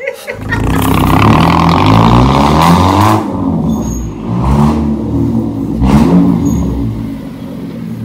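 Hatchback car engine revving up several times, the pitch climbing and dropping back as the car pulls in.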